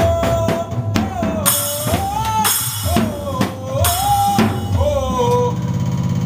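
A melody played with sliding, bending notes over a drum-kit beat with bass drum.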